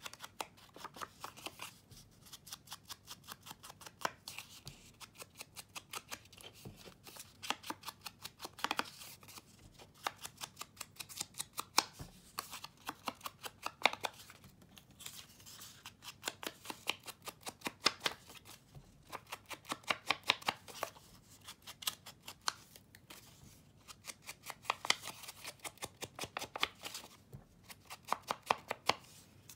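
Ink applicator dabbed and rubbed along the edges of paper: a quick run of light taps and scratches in bursts, with short pauses between them.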